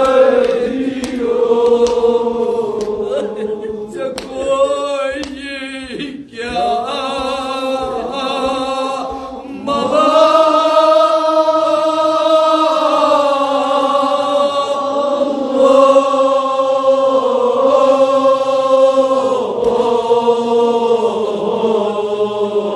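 Kashmiri marsiya, a Shia mourning elegy, chanted unaccompanied by men's voices in long held notes. A wavering, ornamented passage comes about five seconds in, and the chanting grows louder about ten seconds in.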